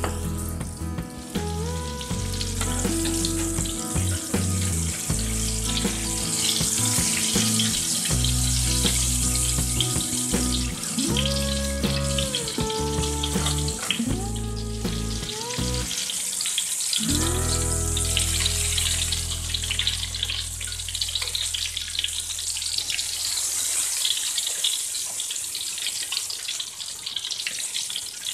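Battered cempedak pieces deep-frying in hot oil in a wok, with a steady crackling sizzle. Background music plays over it and fades out in the last several seconds.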